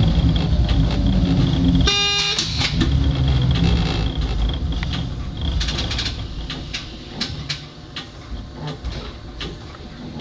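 Cab of a classic NMBS electric multiple unit running on the rails: a heavy low rumble that drops off suddenly about two seconds in, together with a short high beep. The running sound then fades steadily, with scattered sharp clicks.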